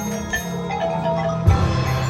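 Marching band show music: the front ensemble's mallet percussion (marimba, xylophone, glockenspiel) plays struck notes over held low notes, with a low drum hit about one and a half seconds in.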